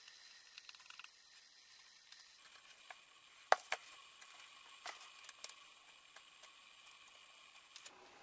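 Small ticks and clicks of steel tweezers and a thin steel keyboard plate being handled while decimal-point markers are fitted. The ticking is faint at first, then a few sharper clicks come a little over three seconds in, the loudest two close together, as the plate is turned over and laid down.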